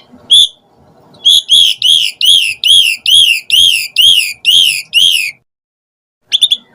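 Asian pied myna (jalak suren) calling: a run of about a dozen identical high notes, about three a second, that stops, followed a second later by a short quick flurry of notes near the end.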